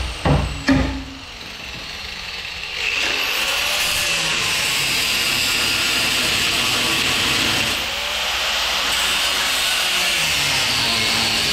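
Three sharp knocks in the first second, then from about three seconds in a power tool running steadily against metal, with a brief dip about eight seconds in.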